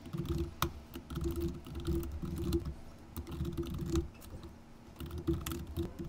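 Typing on a computer keyboard: quick, irregular keystroke clicks, with a short lull a little after the middle.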